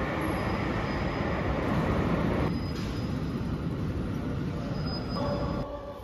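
Metro Bilbao underground train running through the station: a steady rumble of wheels and motors with a faint, thin, high wheel squeal coming and going. The sound drops in level near the end.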